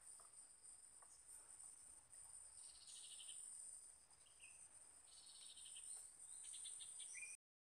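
Faint, steady high-pitched insect chorus, with a few shorter trills that come and go. The sound cuts out abruptly near the end.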